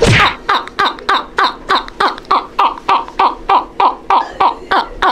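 A man laughing in a long, even run of 'ha's, about three a second, each falling in pitch.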